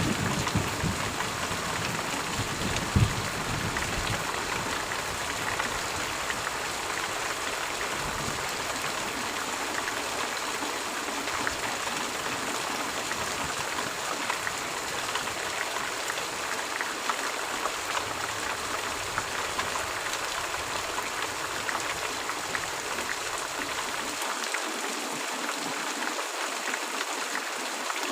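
Steady rain, an even hiss of falling drops. A low rumble dies away in the first few seconds, with one sharp knock about three seconds in.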